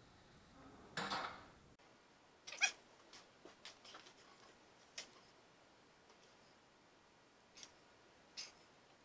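Light clicks and taps of hands handling an aluminium fuel tank and its tubing, scattered a few at a time, the loudest about two and a half seconds in. A short vocal cry sounds about a second in.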